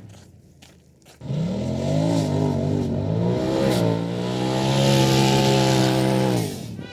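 Off-road vehicle's engine, after about a second of quiet, revving up with its pitch rising and dipping several times, then held at high revs with a rush of hiss, before dropping away near the end.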